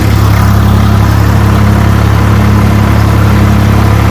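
Swaraj 744 FE tractor's three-cylinder diesel engine running loud and steady at about 1500 rpm, with the PTO engaged in its 540 speed.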